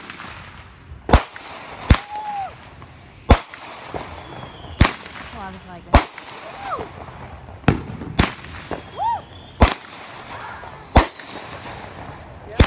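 Aerial fireworks bursting: about ten sharp bangs spaced a second or so apart, with thin high gliding whistles between some of them.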